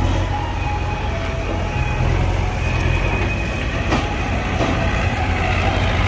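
Diesel tractor engine running, with a loaded steel tipping trolley rattling and clanking as it rolls over rough ground.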